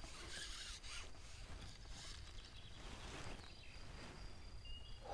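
Quiet outdoor ambience with soft rustles recurring about once a second.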